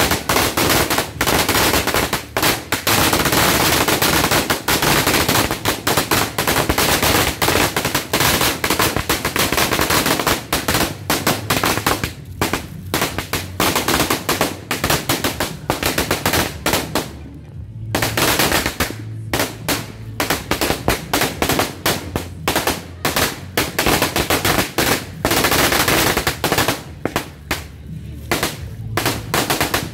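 A 4Sure Sawa 1,000-round firecracker string going off: a rapid, continuous crackle of small bangs. It pauses briefly a little past halfway, then crackles on, thinning out near the end.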